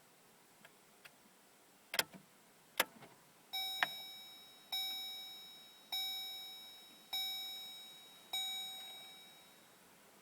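Two sharp clicks, then a vehicle's electronic warning chime sounding five times about a second apart, each bell-like tone ringing and fading away.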